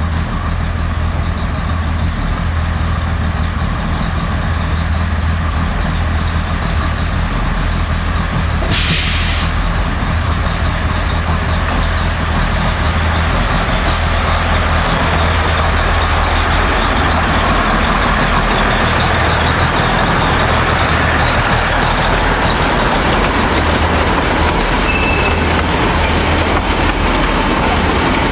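Narrow-gauge Matheran Hill Railway diesel locomotive running with a steady, pulsing low engine hum, with two short hisses of air about a third of the way in and about halfway.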